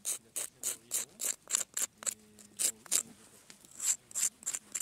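Small knife blade scraping the charred crust of a bannock baked on a stick: quick, short rasping strokes about three to four a second, with a brief pause around three seconds in.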